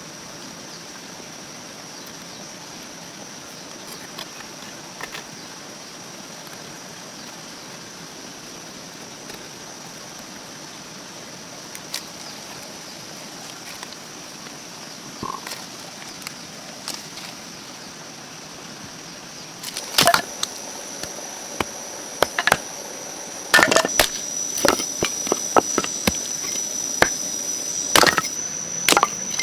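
Steady high-pitched insect trilling over quiet outdoor ambience. About two-thirds of the way in, a series of sharp, loud chopping strikes on wood begins, coming irregularly every second or two.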